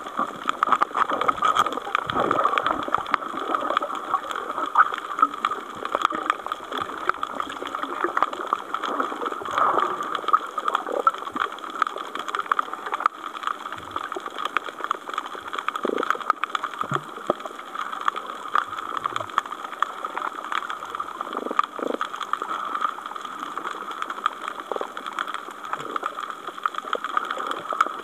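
Underwater ambience over a sandy sea floor: a continuous crackling hiss made of many tiny clicks, with a few short, low, bubbly sounds scattered through.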